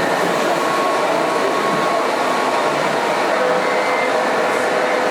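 Small electric motors and gearboxes of radio-controlled model trucks running, with faint thin whines that come and go over a steady wash of hall noise.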